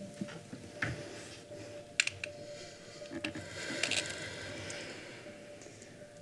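Quiet room tone with scattered small clicks and rustling, a sharp click about two seconds in and a longer rustle around four seconds, over a faint steady hum.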